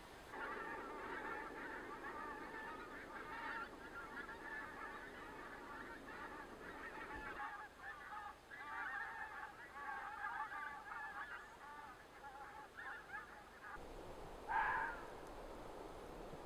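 A flock of geese honking, many calls overlapping, until they stop about three-quarters of the way through. One louder single honk follows shortly after.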